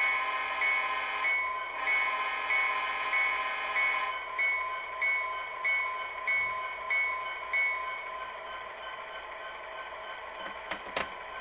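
SoundTraxx Tsunami decoder in an HO SD70M playing its stock locomotive bell through the model's small speaker, ringing evenly about one and a half strikes a second and stopping about eight seconds in. Over the first few seconds two sustained horn blasts sound with it, and a steady engine idle hum runs underneath. A couple of sharp clicks come near the end.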